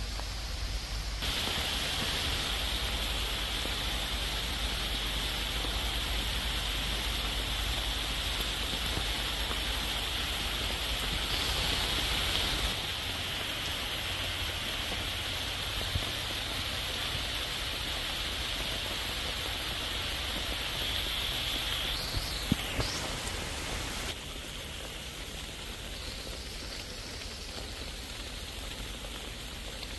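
Heavy rain pouring down on forest leaves, a steady hiss whose level shifts abruptly a few times. A few sharp clicks come about three-quarters of the way through.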